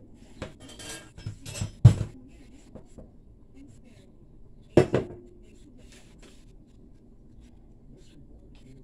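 Kitchen dishes being moved and set down on a countertop: light clatters in the first two seconds, a solid knock about two seconds in, and another knock near five seconds with a short ring, as a ceramic bowl is taken away and a glass pitcher is put down.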